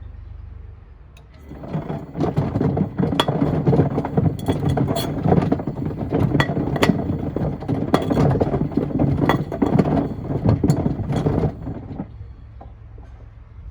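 Stones and pieces of wood tumbling in a Miele washing machine's turning drum: a dense, loud clatter of knocks and bangs that starts about a second and a half in and stops about twelve seconds in, leaving a low steady hum.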